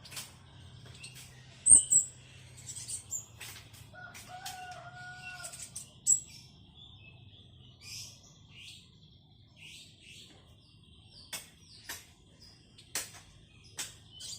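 Black sunbird giving short, high, thin chirps and twitters, scattered through with sharp clicks, the loudest about two seconds in. A rooster crows in the background about four seconds in.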